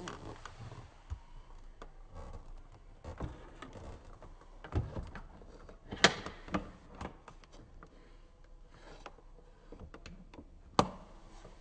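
A steam cleaner's clear plastic filter bowl and its side clips being handled and fitted back into the machine: scattered light plastic clicks and knocks, with two sharp, louder clicks, one about halfway through and one near the end, as the bowl is seated and clipped in.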